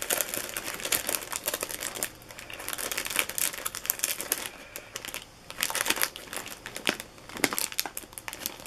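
Crinkle-cut paper shred filler and plastic-wrapped items rustling and crackling as hands dig through a packed cardboard box and lift things out, in irregular bursts with short lulls about two seconds in and again around five seconds in.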